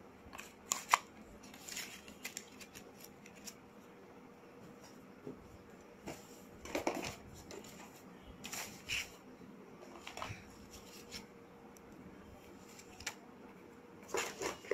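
Light handling noise: scattered small clicks, taps and rustles, the sharpest about a second in, with a few more clustered near the middle and near the end.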